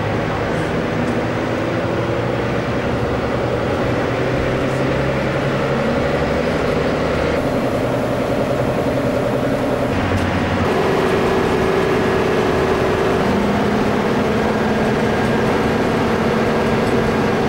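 Coach engine drone and road noise while the coach drives along; the drone's tone changes abruptly twice partway through.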